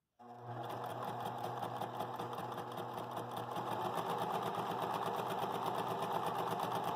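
Domestic electric sewing machine stitching a straight seam at steady speed: motor hum under a quick, even needle clatter that picks up over the first second.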